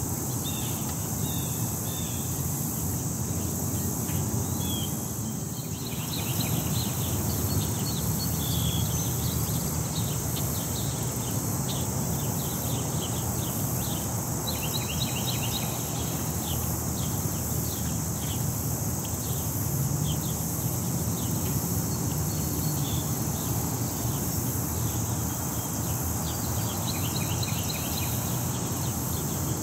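Park ambience: a steady high-pitched insect chorus, with birds chirping in short rapid series now and then, over a low steady rumble of city background noise.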